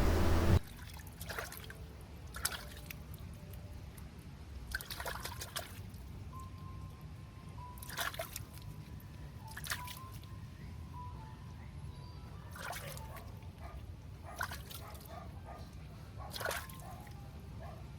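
Water splashing and dripping in irregular spurts as dirt and debris are rinsed off a water pipe.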